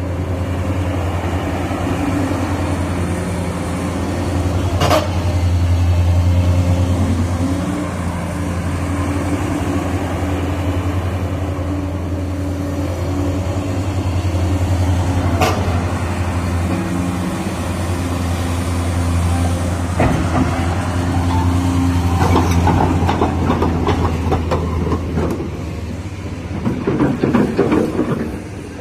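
Cat 345GC crawler excavator's diesel engine running steadily, its pitch and load shifting now and then as the hydraulics work. There are a few sharp knocks, and a spell of rattling and clanking near the end.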